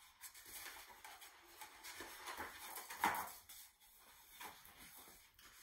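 Large picture book's paper pages being turned by hand: faint rustling and sliding of paper, with a louder flap about three seconds in.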